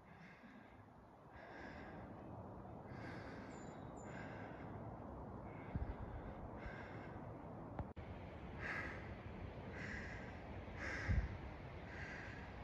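A hiker's own breathing close to the microphone while walking the trail: a regular series of short breaths that quicken to about one a second in the second half. A few low thumps come in near the end.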